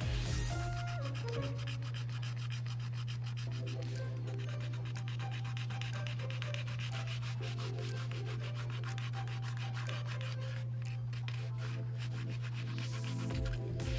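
Rapid, close-set scratching strokes of a scratch tool scraping the black coating off a scratchboard, thinning out for a moment about two-thirds of the way through. A steady low hum runs underneath.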